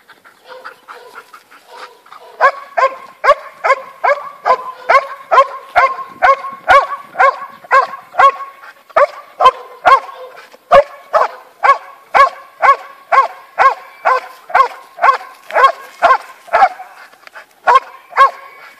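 Belgian Malinois barking at a helper hidden in a protection-training blind, a bark and hold: a regular run of sharp barks at about two a second. The barks are faint at first and grow loud about two seconds in as the dog reaches the blind.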